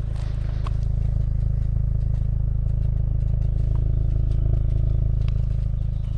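A 2021 VW Golf GTI Mk8 under way, its 2.0 TSI turbocharged four-cylinder petrol engine and road noise making a steady low hum that grows a little louder through the middle and eases near the end, with a few faint clicks.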